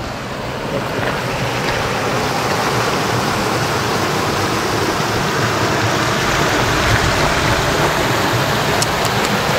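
Mountain stream babbling: a steady rush of running water that swells slightly in the first second and then holds even.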